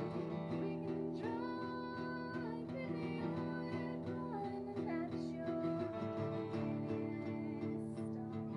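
Background song: acoustic guitar with a voice singing held notes.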